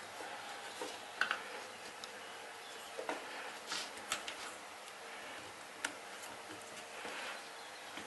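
Scattered small clicks and taps from hand work on electrical wires and WAGO lever connectors, a few sharp clicks a second or so apart over faint background hiss.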